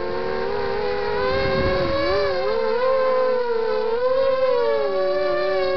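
The four Emax 2300 kV brushless motors of a QAV250-clone FPV quadcopter whining in flight, several close tones sliding up and down together as the throttle changes, louder from about a second in.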